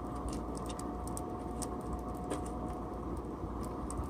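Coal forge burning with its air blower running: a steady rush of air with a thin whine that stops about three seconds in, and scattered small crackles and pops from the burning coal.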